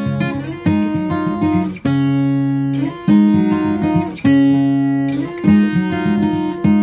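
Background music: acoustic guitar strumming chords, with the chord changing about every second.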